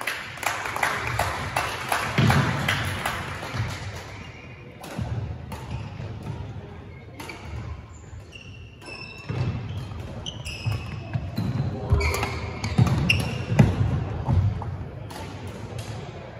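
Indoor racket-sport singles rally: a run of sharp hits and knocks, low thuds of footwork, and short high squeaks of shoes on the court floor, echoing in a large hall.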